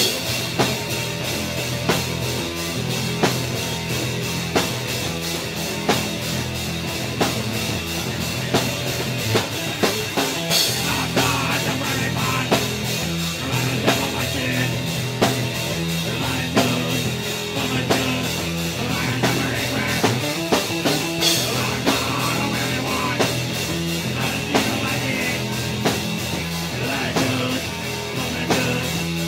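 Live punk rock from a bass-and-drums duo: electric bass guitar and a drum kit playing a steady beat, with regular drum hits and occasional cymbal crashes.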